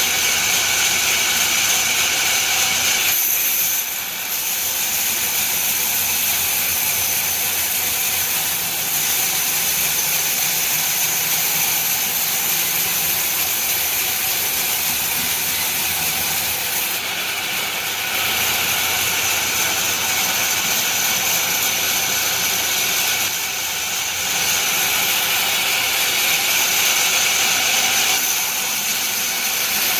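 Sawmill saw running steadily with a loud, hissing machine noise, its tone shifting briefly several times as it works.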